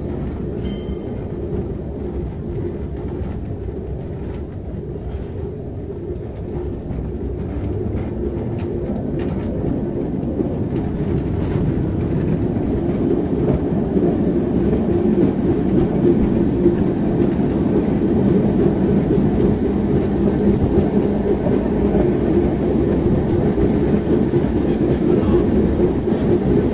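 Tram running on its rails: a steady rumble with a low hum and some rail clatter, growing gradually louder from about six seconds in.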